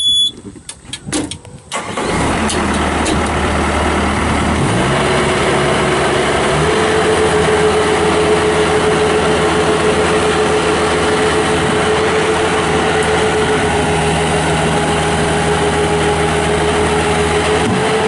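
A short beep, then the 2005 Bobcat T180 skid steer's Kubota diesel cranks and starts about two seconds in and runs steadily. Its engine speed steps up twice, at about five and seven seconds, holds there, and drops back just before the end.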